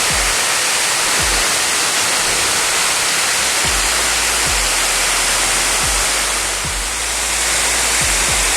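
Waterfall pouring, a loud steady rush of falling water, with scattered low thumps.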